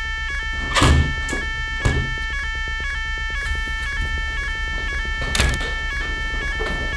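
A building fire alarm sounder plays a rapidly stepping electronic tone without a break: the evacuation signal. Over it, a window is banged shut about a second in, with a second knock just after, and a door shuts about five seconds in.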